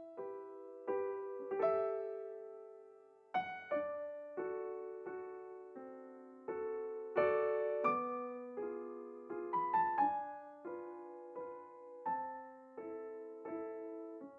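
Solo piano music: a light, unhurried melody over chords, each note struck and left to die away.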